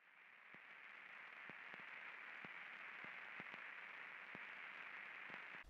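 Near silence: a faint steady hiss with soft, irregular ticks about twice a second, like light static crackle.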